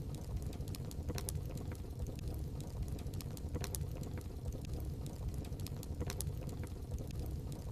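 Wood fire burning in a fireplace, a steady low rumble with irregular sharp crackles and pops from the burning wood.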